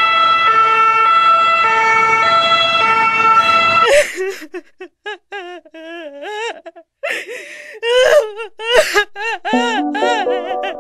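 Emergency-vehicle siren switching between two tones about every half-second for the first four seconds, then breaking into short wavering wails with gaps. Music with held notes comes in near the end.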